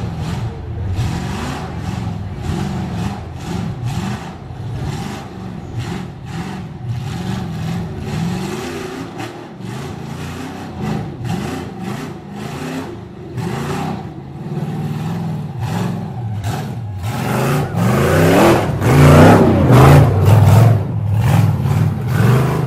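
Rock bouncer buggy's engine revving in repeated throttle bursts as it claws up a rock climb, rising and falling in pitch, then growing much louder and higher over the last five seconds.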